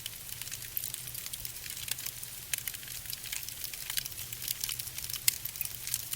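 Fire burning, with dense, irregular crackles and pops over a steady low hum.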